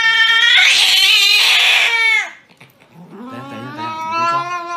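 Black cat yowling angrily while restrained in a towel: a long, wailing yowl with a harsh, hissy edge that drops off about two seconds in, then after a short pause a lower, drawn-out growling yowl begins. This is the defensive cry of a fierce cat being held against its will.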